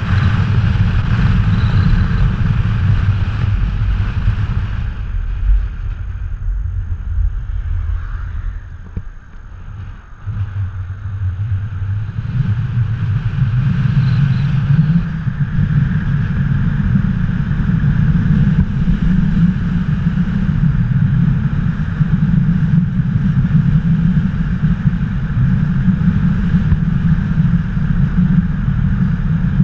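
Wind buffeting a GoPro's microphone held out of a moving car's window, mixed with the car's road and engine noise as a loud, steady rumble. It drops away briefly about nine seconds in, then rises again.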